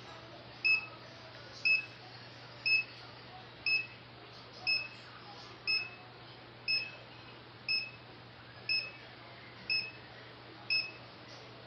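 Havells RO water purifier's buzzer beeping, one short high beep about every second, over and over. This is the repeated warning beep that the purifier is being repaired for.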